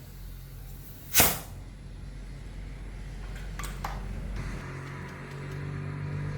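A brief loud hiss, like a short burst of air or spray, about a second in, then a few sharp clicks; in the second half a low, steady, pitched hum sets in and slowly gets louder.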